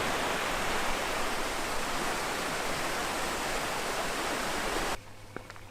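Rushing water of a mountain stream or waterfall, a steady even rush that cuts off suddenly about five seconds in, leaving a few faint clicks.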